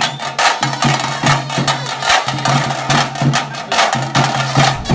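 Background music with a fast percussive beat of drum and wood-block-like strikes over a bass line, cutting off abruptly at the end.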